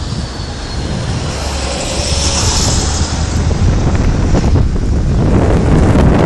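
Wind buffeting the microphone over road traffic, with a car hissing past about two seconds in; the noise swells in the last couple of seconds as a tow truck drives up close.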